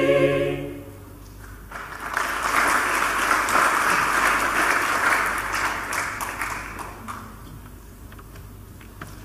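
A mixed choir's final held chord ends within the first second, then the audience applauds for about five seconds, the clapping swelling and then dying away.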